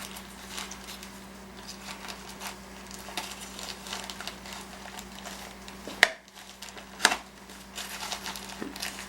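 A blade cutting through packaging tape and cardboard on a shipping box, with light scraping and rustling and two sharp clicks about six and seven seconds in. A faint steady hum runs underneath.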